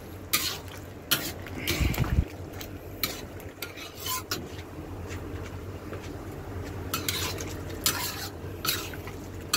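Metal spatula scraping and clacking against a black wok while a thick pork stew in tomato sauce is stirred, a scrape roughly every second, over a low steady hum.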